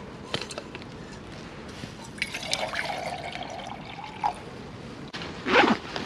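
Water being poured into a pot, filling with a steady, slightly rising tone for a couple of seconds, then a louder clatter near the end.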